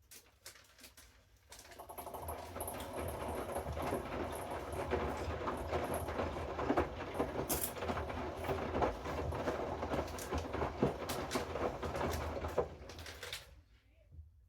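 Hoover front-loading washing machine turning its drum: a steady motor hum with water sloshing and the wet load slapping and clicking, starting about two seconds in and stopping shortly before the end as the drum pauses.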